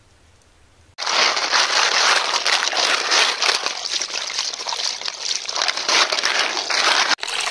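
Water gushing in a steady rush that starts abruptly about a second in, with a momentary break near the end.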